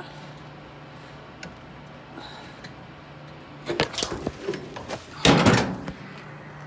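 Handling noise from a slipping smartphone: a cluster of sharp knocks and rattles about four seconds in, then a louder rough scraping clatter just after five seconds as the phone slides and is caught. A faint steady low hum runs underneath.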